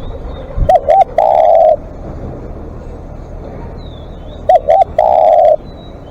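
Spotted dove cooing its song twice: each phrase is two short coos followed by one long drawn-out coo. Faint high chirps of other small birds are heard between the phrases.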